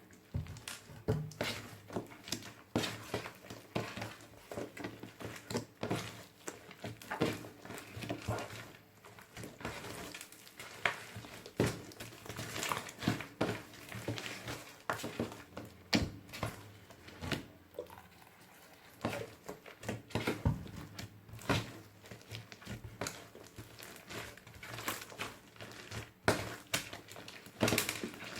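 Hands kneading and squishing glitter slime mixed with beads, giving a continuous run of irregular wet clicks and pops.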